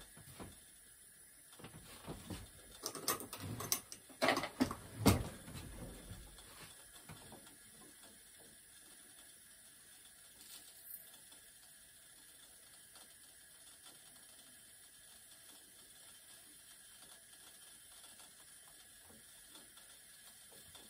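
Lab equipment being handled: a flurry of small hard clicks and knocks in the first few seconds, loudest about five seconds in, then only a low steady background hiss with one faint click.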